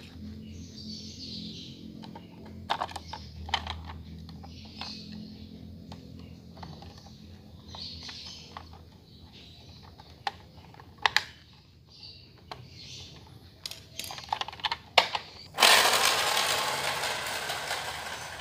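Sharp plastic clicks and taps from a toy car being handled. Near the end a sudden loud whirring starts and fades steadily as the toy car's small electric motor drives it off across the tile floor.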